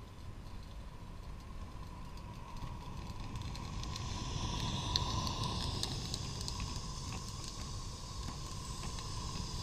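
A garden-railway model Garratt steam locomotive and its freight wagons roll past at track level. The wheels click over the rail joints over a steady hiss, and the sound builds as the engine draws level about four seconds in.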